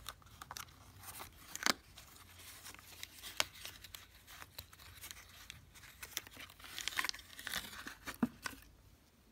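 A paper-backed plastic blister pack being torn open and crinkled by hand: scattered crackles and rips, with a sharp rip about a second and a half in, another around three and a half seconds, and a busier stretch of crinkling and tearing toward the end.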